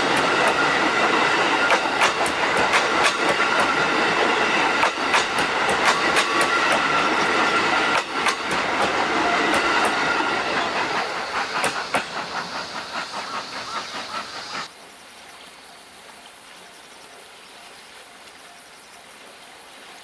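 Passenger coaches of the SL Yamaguchi steam train running past close by, the wheels clicking rhythmically over the rail joints, with a few steady ringing tones over the clatter. The clatter fades, and about fifteen seconds in it cuts off abruptly to a much quieter steady high hiss.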